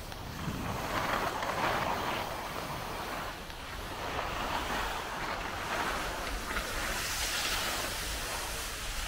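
Skis hissing and scraping over groomed snow on a downhill run, rising and falling in a few long swells.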